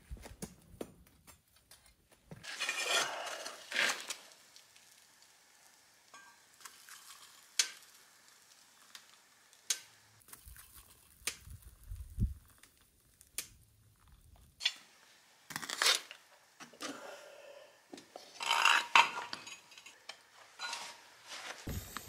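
Scattered metallic clinks, knocks and scrapes of metal pieces and tools being handled, with a few short rustling scrapes. Just before the end a loud steady hiss starts up.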